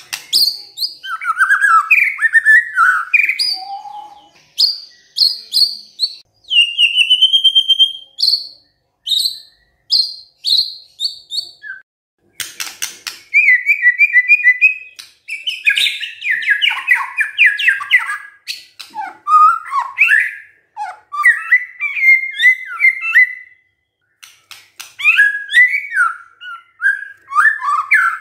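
White-rumped shama singing a long, varied song of clear whistles, trills and quick repeated notes, broken by short pauses every few seconds. A brief dry rattle comes near the middle.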